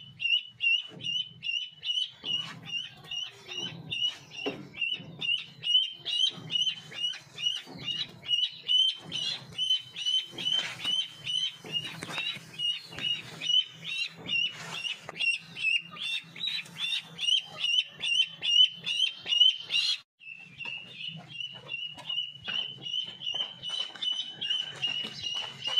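Domestic duckling peeping steadily, short high calls about three a second, with a brief break about three quarters of the way through.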